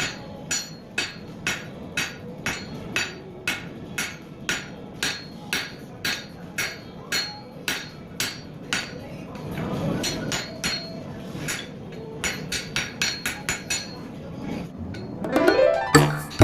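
Blacksmith's hand hammer forging steel on an anvil: steady blows about two a second, then a run of quicker, lighter blows, with music coming in near the end.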